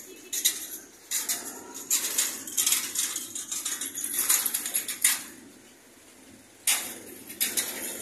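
Metal utensils clinking and scraping against metal pans and trays. There are rapid clinks for about five seconds, a short lull, then another burst near the end.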